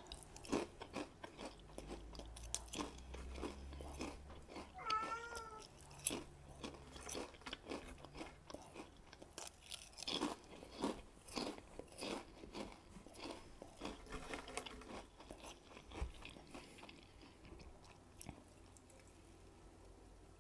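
Potato chips being bitten and chewed, a steady run of crisp crunches that thins out near the end. A short, wavering cat meow sounds about five seconds in.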